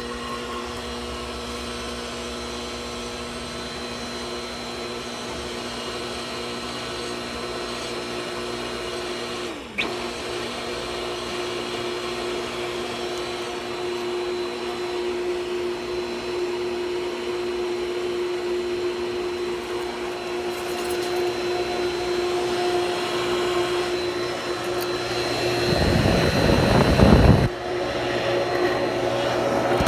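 Pool pump motor running with a steady hum and a grinding noise. There is a short break about ten seconds in, and the sound grows louder and rougher near the end.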